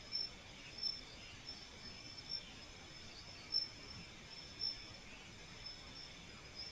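Crickets chirping: short, high chirps repeating about once a second over a fainter, steady insect buzz.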